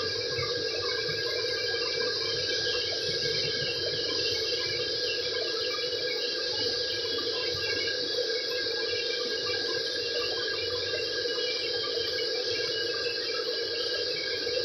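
Hot oil sizzling and crackling steadily in a large pan as a panful of chopped intestines deep-fries.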